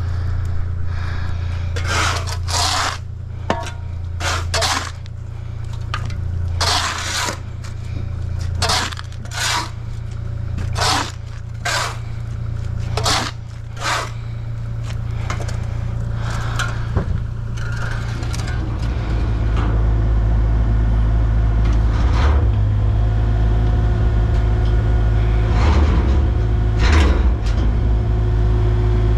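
Shovels scraping and digging into stony soil, about a dozen strokes roughly a second apart, over the steady hum of a running engine. The strokes stop about halfway through, and the engine grows louder in the last third.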